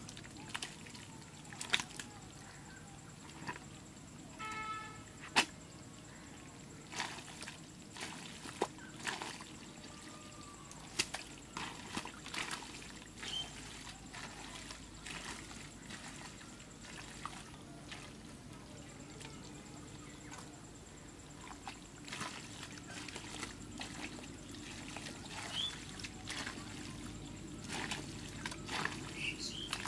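Hands and feet working through wet mud and shallow muddy water while groping for eels: irregular squelches, splashes and sloshes, some sharper than others.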